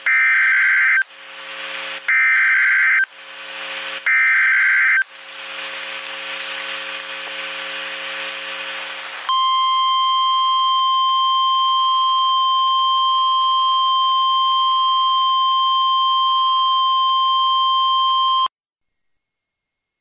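Emergency Alert System SAME header: three loud one-second bursts of screeching digital data tones, each about two seconds apart, with a fainter hiss between and after them. Then comes the EAS attention signal, a single steady electronic alarm tone held for about nine seconds that cuts off abruptly.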